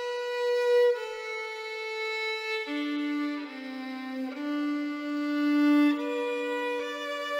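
Violin playing a slow melody in long bowed notes, dropping to lower notes around the middle and rising again near the end.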